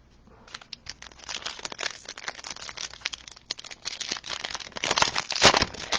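Foil trading-card pack wrapper crinkling and tearing as it is opened, in dense irregular crackles that grow louder toward the end.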